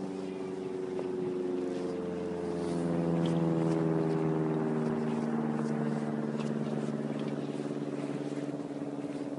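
A motor's steady drone passing by. It swells to its loudest about three and a half seconds in, and its pitch slowly slides down as it passes.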